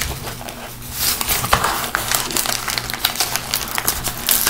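Crinkling and rustling of a kraft-paper mailer envelope being worked open by hand, with many small crackles and ticks. It is sparse at first and becomes busier from about one second in.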